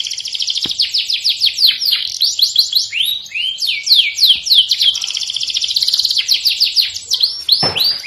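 Domestic canary singing a fast, unbroken song of rapid falling notes and quick trills, with one long falling note near the end.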